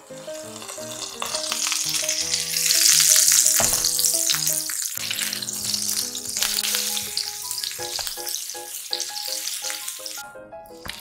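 Food sizzling in a hot frying pan, loudest about two to four seconds in, with a short break near the end, over background music.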